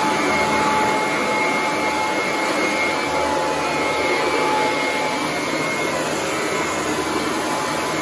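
Sanitaire commercial upright vacuum cleaner running steadily, its head pushed across bare ceramic tile: an even motor-and-airflow noise with a thin steady whine in it.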